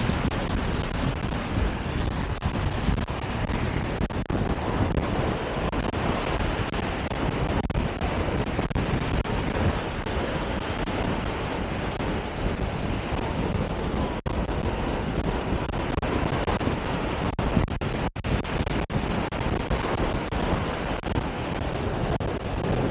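Steady rushing noise with a heavy low rumble, like wind buffeting the microphone, cutting out for an instant a few times.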